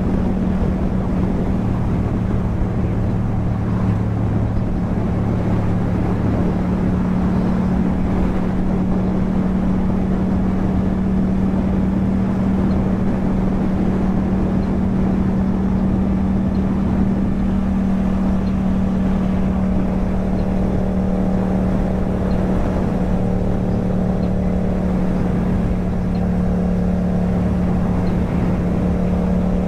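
Yamaha MT-07's parallel-twin engine running through an Akrapovic exhaust, the bike cruising at a steady speed with an even engine note that holds the same pitch throughout.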